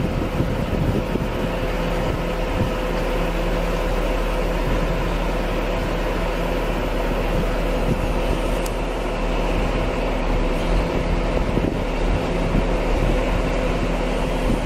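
Neuenhauser 3F tracked star screen running under load while a wheel loader feeds its hopper: a steady, even machinery drone with a constant hum.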